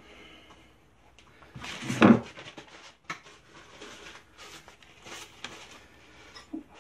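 Knocks, clicks and clatter from handling a hot knife blade with tongs at an oil quench tank, with one louder rush of noise about two seconds in.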